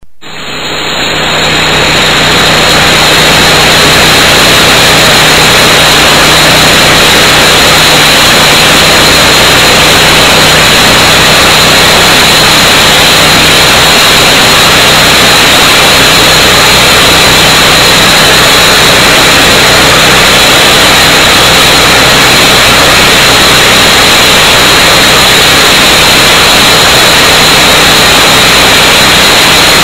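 EDCO walk-behind concrete saw with its Honda engine running steadily: a loud, dense hiss over a low engine hum, fading in over the first two seconds.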